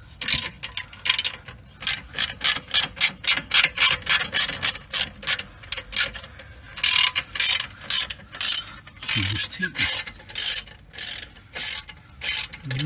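Ratchet wrench clicking in quick repeated strokes, a few a second, as it undoes the 16 mm brake caliper mounting bolts.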